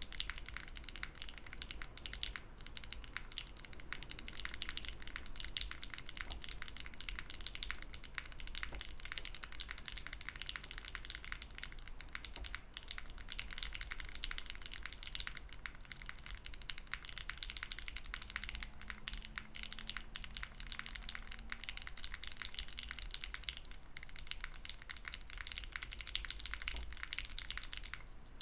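Continuous fast typing on a Hera R2 mechanical keyboard with lubed LOGA Nomyen switches, a POM plate, no foam and GMK keycaps: very soft sounding keystrokes in a dense, unbroken stream.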